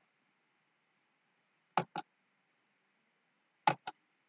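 Computer mouse clicks: two pairs of quick clicks about two seconds apart, over a faint steady hiss.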